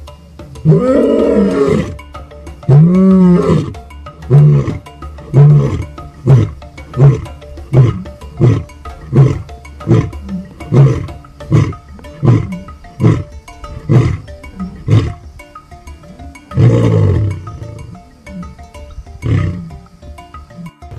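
Male African lion roaring: two long, deep moaning roars, then a long series of short grunts that come closer together as they go. Another loud roar follows about 17 seconds in, with one last grunt after it.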